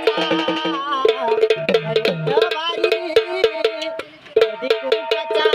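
Sambal drums beaten with sticks in a fast, dense rhythm, with a wavering melody over them; the music drops out briefly about four seconds in and comes straight back.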